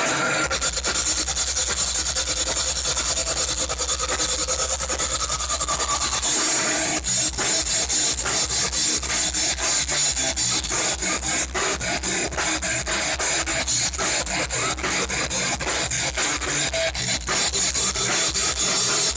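Heavy metal band playing live: distorted electric guitars over drums, with a dense wash of noise, turning to fast, rapid drumming about seven seconds in.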